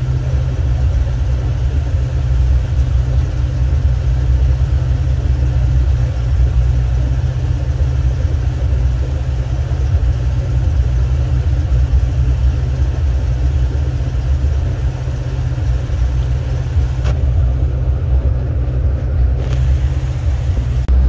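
Birchwood 22 river cruiser's engine running steadily at cruising speed, a constant low rumble heard from inside the cabin.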